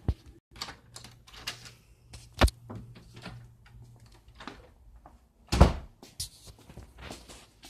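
Scattered clicks and knocks of objects being handled, with two louder thumps, one about two and a half seconds in and one about five and a half seconds in.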